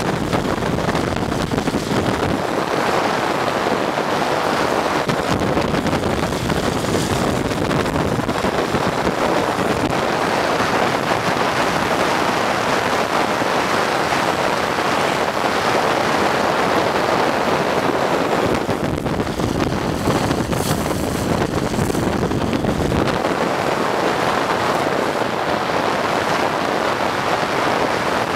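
Steady rush of wind over the microphone of a camera moving at speed, mixed with road noise from the chase car rolling along the asphalt.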